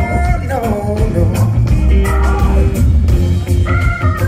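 Live reggae band playing: a singer's voice over heavy bass, drum kit, electric guitar and keyboards.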